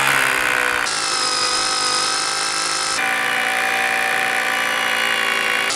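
Makita DHR202 18 V cordless rotary hammer hammer-drilling into a concrete block with an 8 mm bit: a steady motor whine over the drilling that shifts slightly in pitch about a second in and again near three seconds. The tool copes with this bore less easily than the DeWalt DCH263.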